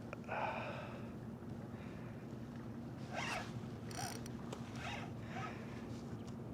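Fishing reel rasping in several short spells, about five in a few seconds, while a hooked redfish of about 25 inches is played in.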